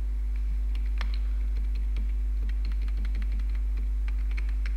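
Computer keyboard keys clicking in irregular taps, over a steady low electrical hum.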